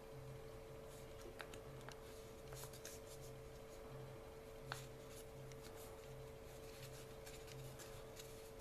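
A sheet of origami paper rustling and crackling faintly as hands crease and shape it, with scattered sharp crinkles, the sharpest about halfway through. A faint steady hum runs underneath.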